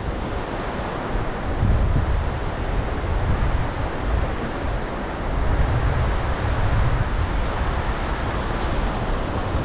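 Strong wind buffeting the phone's microphone: a loud low rumble over a steady rush, swelling in gusts about two seconds in and again past the middle.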